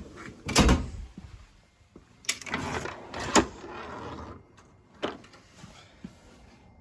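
Metal Snap-on tool chest drawers sliding on their runners and shutting. There is a thud just after the start, then a longer slide that ends in a bang, and a lighter knock about five seconds in.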